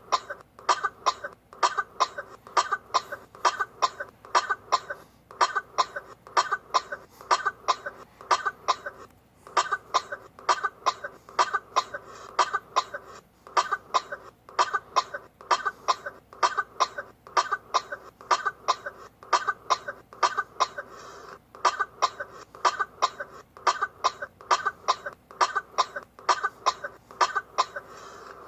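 Rapid, repeated short coughs, about two or three a second, kept up with only a few brief pauses.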